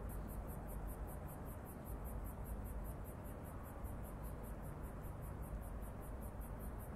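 Ambient night soundscape: a steady low rumble with an evenly pulsing, high-pitched chirring like crickets over it, about five pulses a second.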